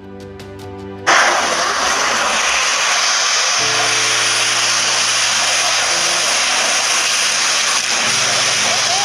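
Music cuts off about a second in to loud, steady storm noise of strong wind and rain, with faint background music continuing underneath.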